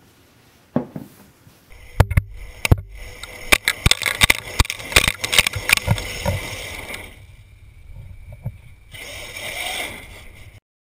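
Radio-controlled monster truck running over rough ground: a dense run of sharp knocks and clatters over a steady rushing noise, easing off after a few seconds and cutting off suddenly near the end.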